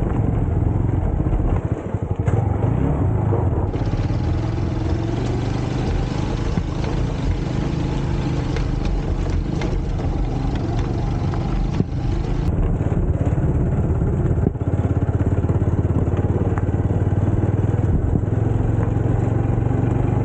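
Motorcycle engine running steadily while the bike rides over a loose, rocky gravel track, with scattered knocks and rattles from the stones and the bike. A rougher hiss joins in from about four seconds in and drops away again around twelve seconds.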